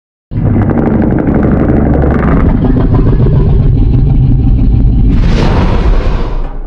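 Custom Godzilla roar sound effect in the Monsterverse style: a low, rattling growl that turns brighter and higher about five seconds in, then cuts off suddenly.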